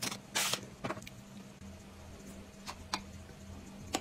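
Eating utensils and plastic food packaging being handled: a short rustling burst about half a second in, another near one second, then a few light clicks, the fork tapping the plastic cake tray. A faint steady hum runs underneath.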